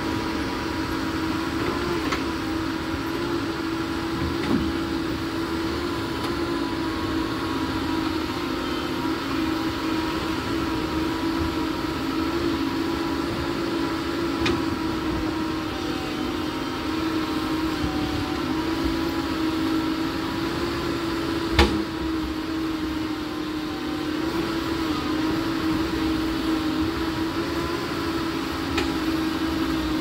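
Doosan DX225LCA crawler excavator's diesel engine running steadily as it works, a constant hum with a steady tone. A single sharp knock comes about two-thirds of the way through.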